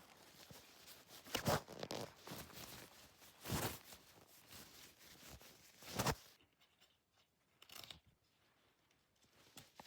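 Packaging being torn open and crinkled by hand, typical of unwrapping an LOL Surprise toy. There are three louder rips, about two seconds apart, with lighter rustling between them; it goes quieter after about six seconds.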